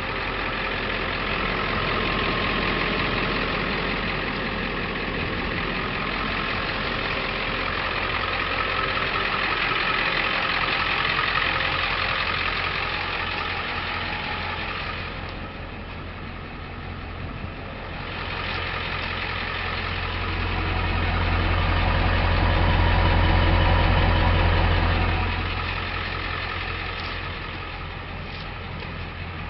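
2001 Ford F550 4x4 truck's engine idling steadily, its low hum growing louder for a few seconds about two-thirds of the way through.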